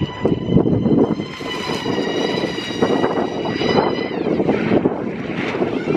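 QEV RX2e electric rallycross car driving past on gravel: a high, steady electric drivetrain whine over tyre and gravel noise. The whine drops in pitch about four seconds in.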